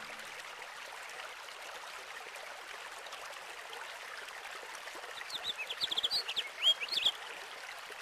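Steady sound of a running stream, with a small bird chirping in a quick run of short notes for about two seconds, starting about five seconds in.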